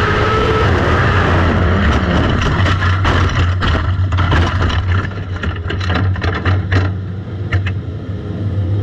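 1000cc Lightning sprint car motorcycle engines running at speed, the pitch rising and falling at the start over a steady low drone. Many sharp clicks and knocks come through the middle.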